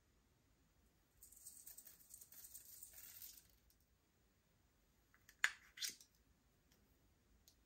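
Slime being worked by hand: a faint high crackling for about two seconds, then two short sharp clicks close together.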